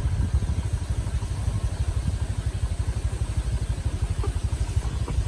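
Diesel engine of a sugarcane-laden truck running at low speed as it crawls along a dirt track, a steady, rapid low chugging.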